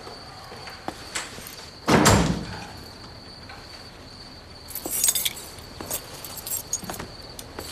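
A heavy wooden front door pushed shut with a deep thud about two seconds in. Around five seconds in comes a brief jingle of keys, then a few light footsteps, over a faint steady high tone.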